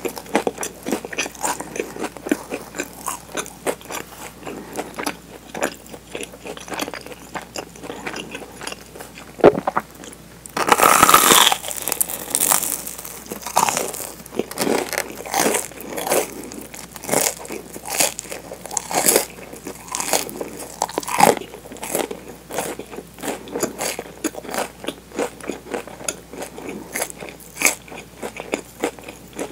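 Close-miked crunching and chewing of a toasted Nutella sandwich's crisp bread crust, with bite after bite all through. The crunching is loudest and densest about eleven to thirteen seconds in.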